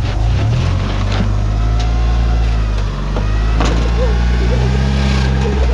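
Lowered Mitsubishi Lancer Evolution's engine running at low revs as the car is manoeuvred slowly, the engine note rising a little about half a second in and again near the end. A single sharp knock about three and a half seconds in.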